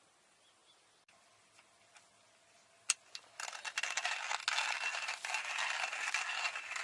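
Camp stove heating water for morning coffee: a sharp click about three seconds in, then a steady crackling hiss.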